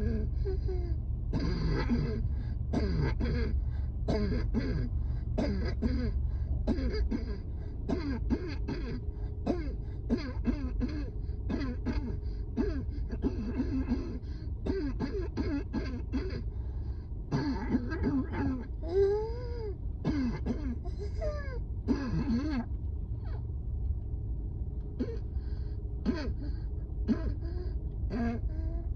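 A person coughing and clearing their throat over and over in a long fit, many of the coughs strained and voiced, with a short lull about three-quarters of the way through; the sign of a severe asthma flare-up. A steady low rumble runs underneath.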